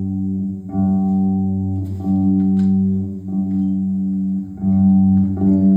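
Instrumental music: a run of sustained low notes, each held for a second or so before the next begins.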